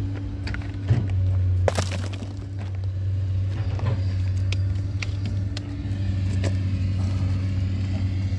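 An engine running steadily at idle, a low hum, with scattered sharp clicks and knocks over it.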